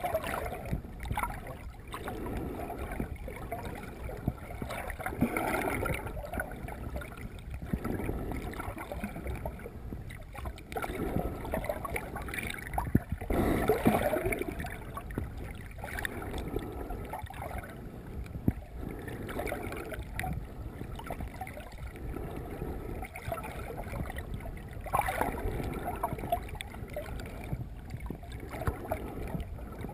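Muffled water noise heard underwater as a snorkeller swims, with irregular swishing swells every couple of seconds from the arm strokes, the loudest near the middle.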